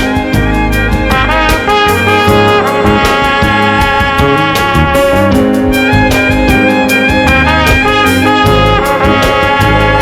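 Loud band music led by a brass section of trumpets, saxophones and trombone, over bass and a steady drum beat.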